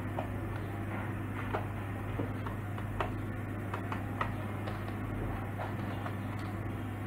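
Keys of a Thermaltake Challenger membrane gaming keyboard being pressed by hand, giving a scattered series of soft, irregular clicks.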